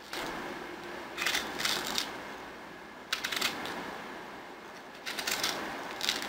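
Paring knife slicing pieces off a hand-held ripe peach, a short crisp cut roughly every two seconds.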